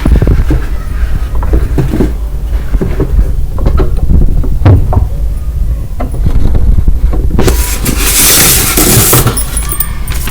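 Unboxing handling noise from the nebulizer's packaging: scattered knocks and taps as the box and contents are handled, then a loud rustle of packaging for about a second and a half near the end, over a steady low hum.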